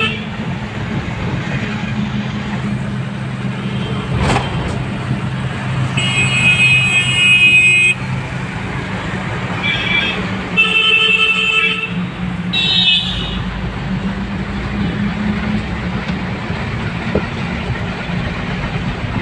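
Steady engine drone and road noise heard from inside a moving car, with vehicle horns honking: a long blast about six seconds in, then shorter ones around ten and eleven seconds and a brief one just after twelve. A sharp knock sounds about four seconds in.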